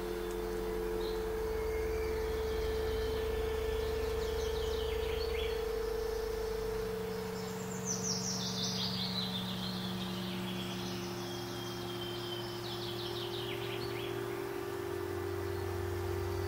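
Fantasy ambience: a low drone of held tones that shift slowly from one chord to the next, with bird chirps and trills over it, including a quick falling trill about eight seconds in.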